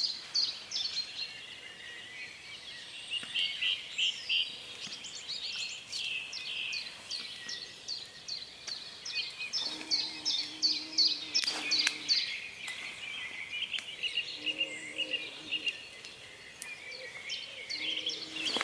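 Dawn chorus: many songbirds singing at once, rapid runs of high notes overlapping, echoing off the surrounding lake. A short low steady note sounds a few times in the second half.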